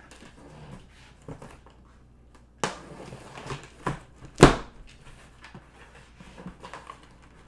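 A utility knife slicing the packing tape on a cardboard shipping box, then the cardboard flaps ripped and pulled open in several sharp, scraping tears, the loudest about four and a half seconds in.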